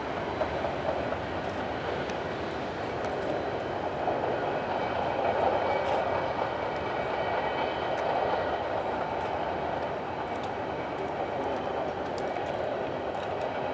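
Empty coal cars of a CSX freight train rolling along the rails, a steady rolling noise of wheels on track with faint thin high tones above it.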